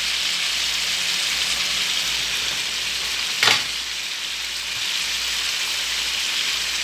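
A thick tomato-based shellfish stew boiling hard in a frying pan as its liquid reduces, giving a steady bubbling sizzle. A single short knock comes about three and a half seconds in.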